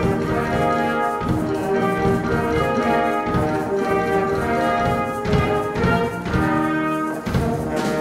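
Student band playing, led by two trumpets sounding held notes that change every half second to a second, over a drum kit with keyboards, clarinet, violin and electric guitar.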